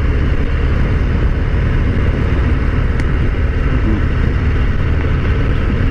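Harley-Davidson FXDR 114's Milwaukee-Eight 114 V-twin engine running steadily while the motorcycle cruises down the road, a low, even rumble.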